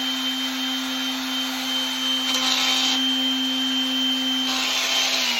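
Electric sander running steadily with 320-grit paper on a brass putter, with two stretches of louder gritty hiss as the paper bears on the metal. Its motor pitch starts to fall as it winds down at the very end.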